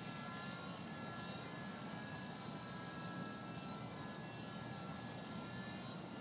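Double Horse 9116 remote-control helicopter in flight, its small electric motor and rotors giving a steady whine that shifts slightly in pitch as the throttle changes.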